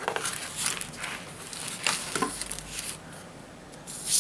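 Handling noise of a cardboard knife box being opened and a chef's knife lifted out: scattered light rustles and soft knocks of card against card, with a louder, brief rustle near the end.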